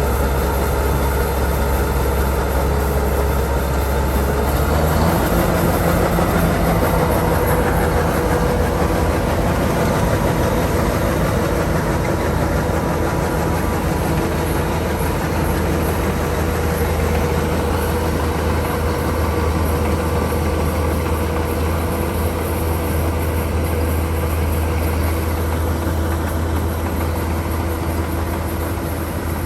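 Kubota DC-105X combine harvester running steadily, a loud continuous engine drone whose pitch shifts about five seconds in.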